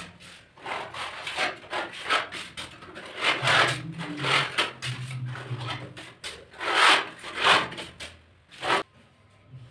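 Putty knives scraping and spreading wall putty across a plaster ceiling in a rapid series of rasping strokes, about two a second, the loudest about seven seconds in.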